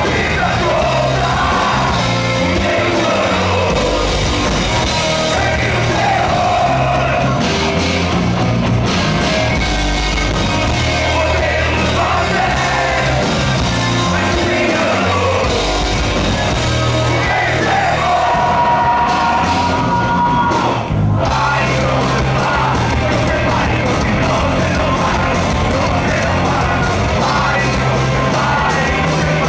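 Hardcore punk band playing live, loud, with yelled vocals over a full rock band. The music drops out for an instant about two-thirds of the way through.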